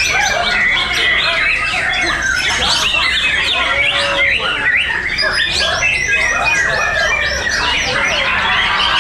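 Several caged white-rumped shamas (murai batu) singing at the same time, a dense, unbroken chorus of overlapping whistles, chirps and quick rising and falling notes.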